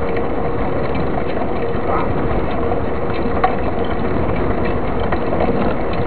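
Wind rushing over a bicycle-mounted camera's microphone, with tyre and road rumble from a mountain bike riding on asphalt; one sharp click about three and a half seconds in.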